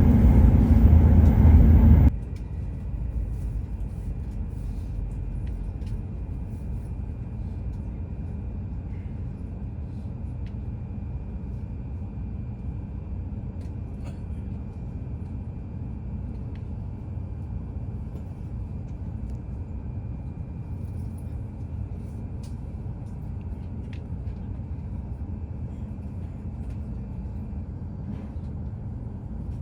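Steady low rumble of a train running, heard from inside the passenger car, with a faint steady high whine over it. A louder stretch of the same kind of noise cuts off abruptly about two seconds in.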